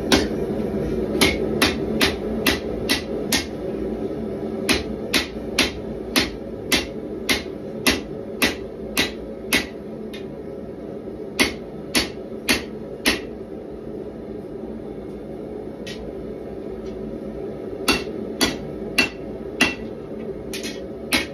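Hand hammer striking a red-hot 1095 carbon-steel knife blank on an anvil: runs of sharp blows about two a second, with a pause of a few seconds in the middle and lighter strikes near the end, over a steady background hum.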